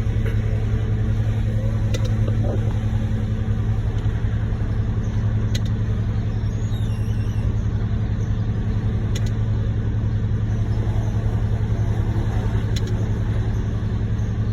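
Concrete mixer truck's diesel engine running at a steady, constant speed, a low even rumble with no revving.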